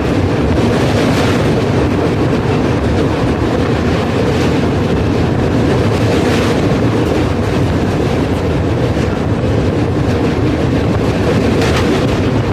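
Train running on rails: a loud, steady rumble with a few faint clacks of the wheels spread through it.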